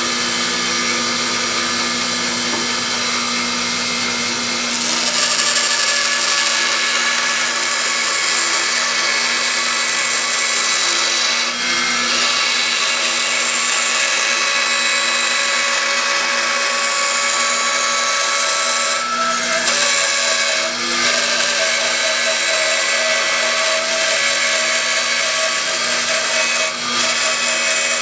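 Band saw running and cutting through a wooden leg blank. The noise is loud and steady, with a few brief dips where the cut eases.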